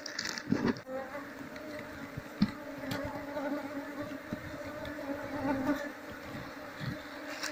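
A colony of Asian honeybees (Apis cerana) buzzing steadily, a massed hum of many wings from a colony disturbed as its comb is cut out. A few short knocks from handling sound over it, the loudest about half a second and two and a half seconds in.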